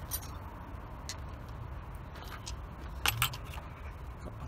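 Scattered light metallic clinks of hand tools, a 14 mm socket on a ratchet or extension being fitted to the starter motor's rear mounting nut, with a louder cluster of clinks about three seconds in. A steady low hum runs underneath.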